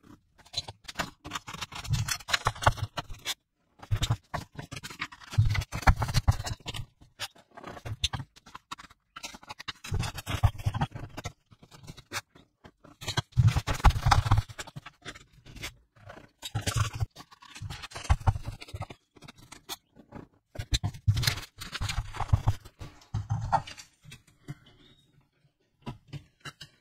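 A clipped stack of paper sheets rustling and flapping as gloved hands shake and flex it, in repeated quick bursts that come every second or two, sped up along with the picture. The bursts thin out and stop near the end.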